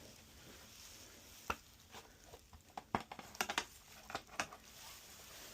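Light clicks and knocks of a motorcycle's plastic body panel being pushed and clipped into place, a quick cluster of them about three and a half seconds in.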